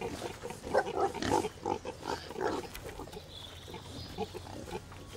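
Pigs grunting while piglets suckle at a sow: a run of short grunts, thinning out and growing quieter after about three seconds.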